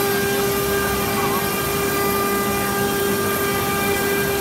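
STYLECNC 3D carving CNC router's spindle running at a steady speed with a constant whine while its bit carves a sandstone relief, over an even grinding noise.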